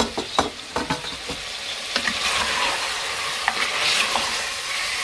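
Wooden spatula stirring mutton and ground spices in an aluminium pressure-cooker pot, knocking against the pot several times in the first second and a half, then a steady sizzle of frying.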